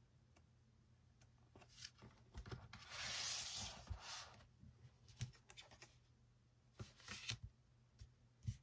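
Paper and card handling: a papery rustle lasting about a second as the album's photobook is closed and slid across the table, then a run of light taps and clicks as photocards and inclusions are set down and shifted.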